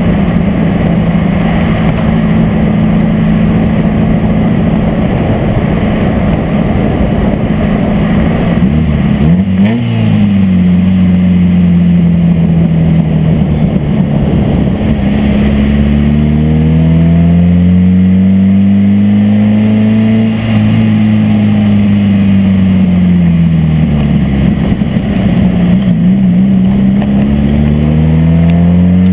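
Mazda Miata's four-cylinder engine, run by a MegaSquirt plug-and-play engine computer, driving along over a rushing noise. The engine note holds steady at first, flicks up and down briefly about ten seconds in, then rises and falls in long, slow sweeps as the car speeds up and eases off.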